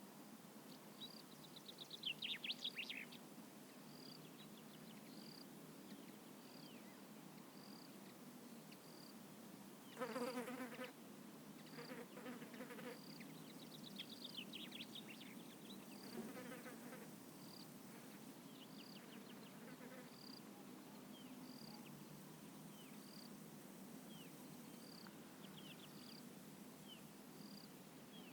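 Faint evening countryside ambience in a vineyard. An insect gives a short, high chirp about every second and a half, birds twitter now and then over it, and a louder, lower animal call comes about ten seconds in.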